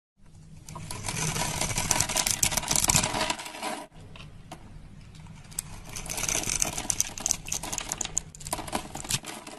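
A knife blade cutting through a crosshatch-scored bar of soap, the small soap cubes crackling and snapping off in a dense run of crisp scratches and clicks, with a brief break about four seconds in.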